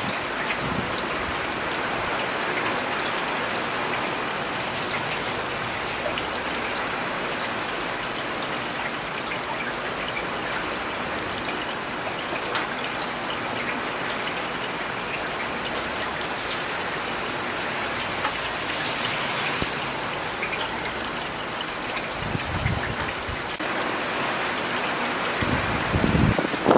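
Steady rain falling on city surfaces, an even dense patter throughout. Two brief low rumbles come near the end.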